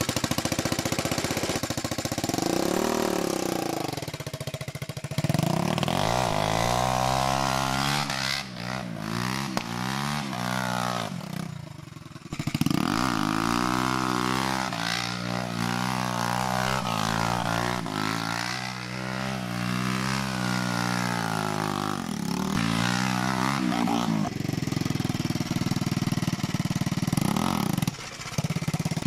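Go-kart with a swapped-in 150cc four-stroke motorcycle engine being driven. The engine revs up and down repeatedly, its pitch climbing and then dropping again many times.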